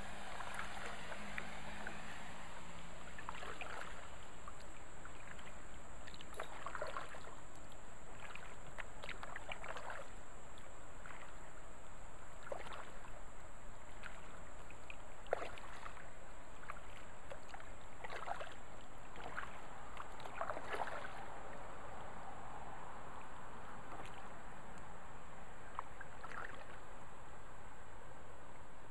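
Kayak paddle strokes splashing and dripping in river water, irregular, every second or two, over a steady hiss of moving water.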